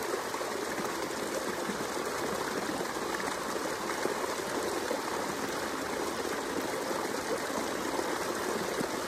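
Creek water falling over a series of rock cascades: a steady rush of water.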